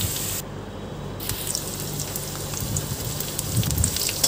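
Gram-flour-coated okra shallow-frying in hot oil in a kadhai: a steady sizzle with scattered small crackles, its hiss thinning out for under a second near the start.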